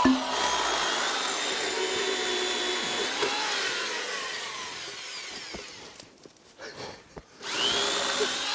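Electric chainsaw running and cutting through a pine log, its motor whine sagging and rising with the load. About six seconds in it cuts out briefly, then spins back up with a rising whine.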